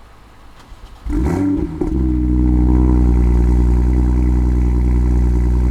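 BMW M2's N55 turbocharged straight-six, fitted with a high-flow catted downpipe, heard from outside the car. It fires up about a second in with a short flare, then settles into a loud, steady idle.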